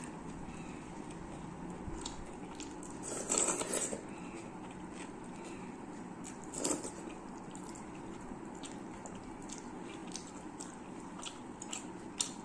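Close-up eating sounds: chewing and wet mouth noises, with fingers mixing rice on a steel plate. Many small clicks, and two louder bursts about three and a half seconds and nearly seven seconds in.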